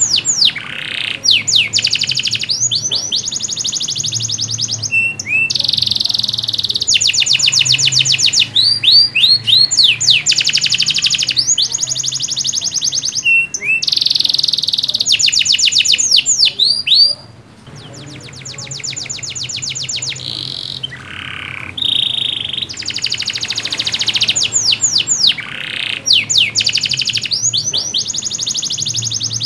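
Domestic canary singing, with a long series of fast trills and rolls of rapidly repeated notes broken by short pauses. The song goes quieter for a few seconds past the middle, then picks up again.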